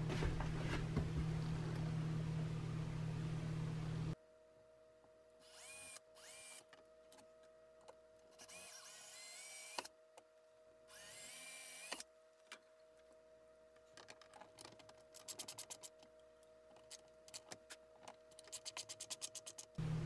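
A steady hiss of background noise that cuts off abruptly about four seconds in, then a cordless drill run in three short bursts, each whine rising in pitch as the trigger is squeezed, at the end cap of a screen door handle. A run of quick clicks follows near the end.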